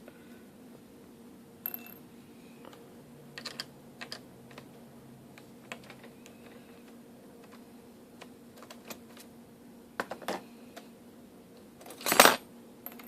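Scattered small clicks and taps of a screwdriver working screws and handling the plastic parts of a laptop screen assembly, with a louder clatter near the end, over a faint steady hum.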